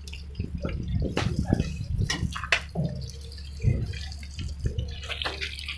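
Dough frying in hot oil, with scattered crackles and pops, over faint background voices.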